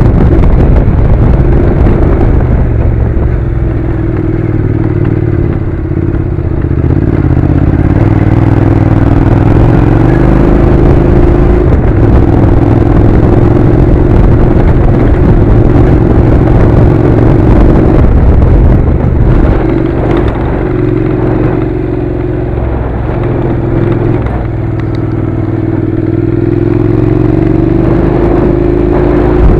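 Honda NC700's parallel-twin engine running at a steady riding speed, its pitch rising and falling a little, under wind rush and tyre noise from a gravel track.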